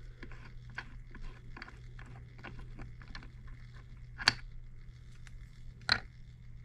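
Faint metallic clicks and scrapes as the piston and rod of a Stuart 10V model steam engine are drawn up out of its cylinder, with two sharper clicks about four and six seconds in.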